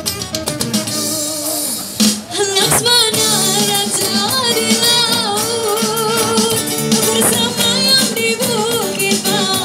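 A woman singing a Malay song into a microphone through a PA speaker, with acoustic guitar accompaniment; her voice comes in about two seconds in after a short guitar passage and is then held in long notes with vibrato.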